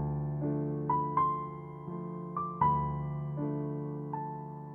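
Soft background piano music: slow notes struck one or two a second over held lower tones, each fading away.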